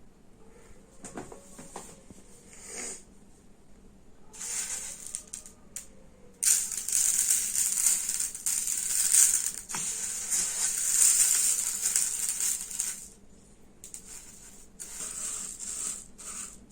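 Dry painted rice grains sprinkled and pattering onto glue-coated cardboard, a rattling hiss that comes in spells, the longest and loudest from about six to thirteen seconds in.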